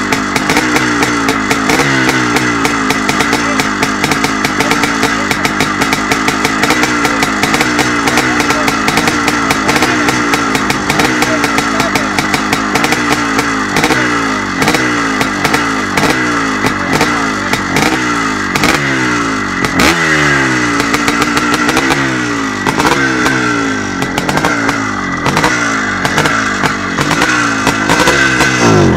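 A 1971 CZ 380's single-cylinder two-stroke engine, with barrel work and a 36 mm Mikuni carburettor, running and being revved by hand, the throttle blipped over and over so the revs rise and fall back roughly once a second.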